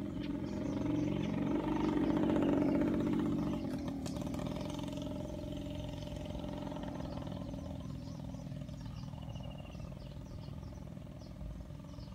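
A motor vehicle's engine running, swelling to its loudest about two to three seconds in and then slowly fading away.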